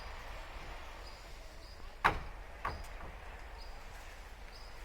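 Quiet outdoor background with faint high chirps, broken about two seconds in by two sharp knocks a little over half a second apart.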